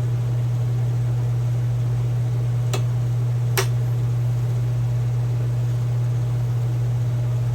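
Two light metallic clicks about a second apart as clip pliers work at a rusted-in C-clip on a hydraulic floor jack. Under them runs a steady low hum.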